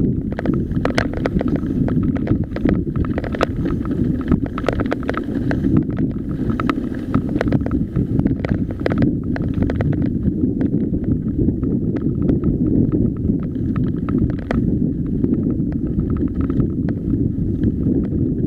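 Wind buffeting the microphone of a point-of-view camera on a mountain bike riding a loose gravel track, a steady low rush, with irregular clicks and rattles from the tyres over stones and the bike's chain and frame.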